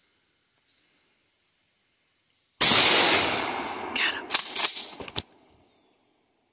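A single gunshot goes off about two and a half seconds in and fades away over a second or so. Several sharp clicks and knocks follow over the next two seconds.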